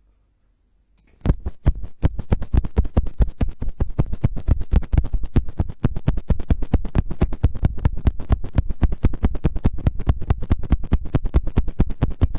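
An ASMR trigger of rapid, close-miked scratching strokes, many to the second and evenly paced. It starts about a second in and keeps going.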